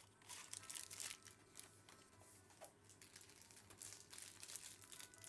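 Faint crinkling and tearing of advent calendar cardboard and wrapping as a door is opened and the item inside is handled, in irregular short crackles.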